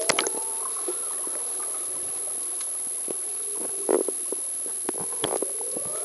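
Muffled underwater pool sound as the camera goes under with a splash, then gurgling water and bursts of bubbles about four and five seconds in. A steady thin high whine sits over it.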